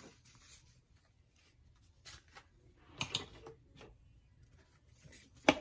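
Ring-bound paper flashcards being handled and moved on a tabletop: soft rustles about two and three seconds in, then a sharp tap near the end as a card stack is set down.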